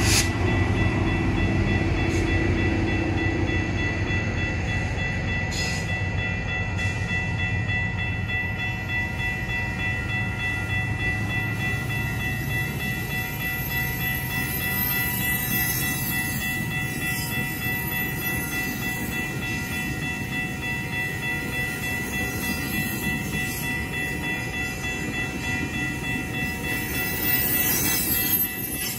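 GO Transit bilevel passenger coaches rolling past at speed, their wheels clattering on the rails. The locomotive's heavy rumble fades over the first few seconds. A level-crossing warning bell rings steadily over the train noise.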